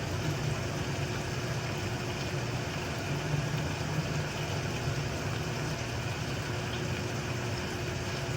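Chicken thighs sizzling in a frying pan, an even hiss over a steady low mechanical hum.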